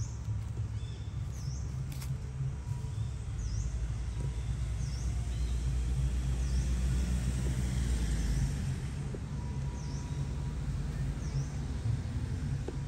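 Outdoor ambience: a steady low rumble with a bird giving a short high chirp about once a second.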